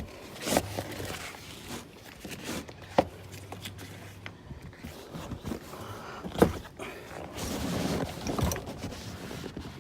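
Scattered knocks and rustling as a car's rear seat cushion is handled and lifted out, with three sharp thumps and a longer stretch of scuffing near the end.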